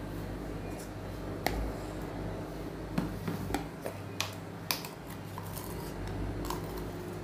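Scattered light clicks and taps of kitchen items being handled on a tabletop, over a steady low hum.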